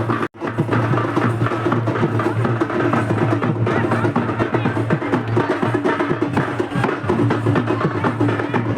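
Music with a steady beat of drums and clacking percussion. The sound cuts out for an instant about a third of a second in.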